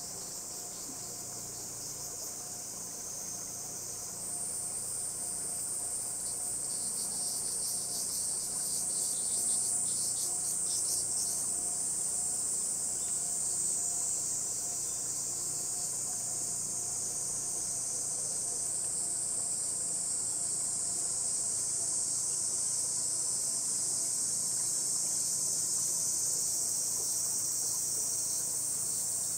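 Cicadas calling in the overhanging trees: a steady, high-pitched drone. A second, louder chorus joins about four seconds in, and there is a few seconds of pulsing rhythm soon after.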